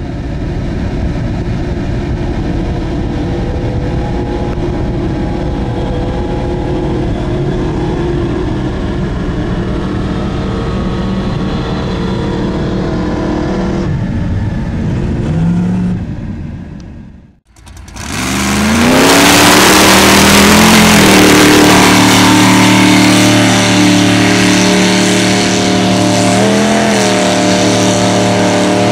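Lifted mud-bog trucks' engines running through a mud pit. For the first half there is a steady engine drone; after a break, a louder engine revs hard, its pitch climbing and dipping, with another short rev near the end.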